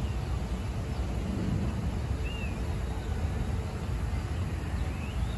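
Outdoor city ambience: a steady low rumble of distant traffic, with a bird chirping briefly twice.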